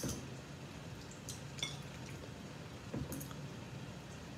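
A small fork clinking lightly against a dish a few times while pasta is eaten.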